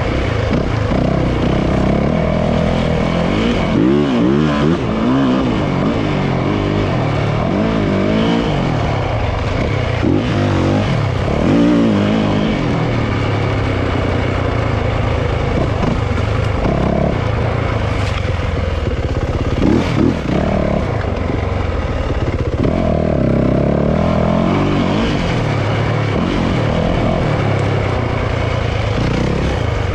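Yamaha YZ450F dirt bike's single-cylinder four-stroke engine running hard as the bike is ridden, its pitch rising and falling over and over as the throttle is opened and closed.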